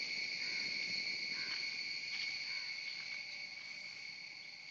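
Steady, high-pitched insect chorus: one unbroken drone that fades a little toward the end.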